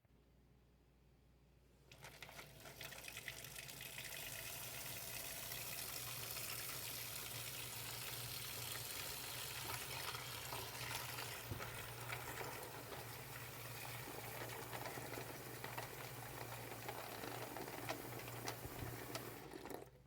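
Water running from a tap into a container of keyboard keycaps, a steady rush with a low hum underneath, starting about two seconds in and cutting off sharply near the end.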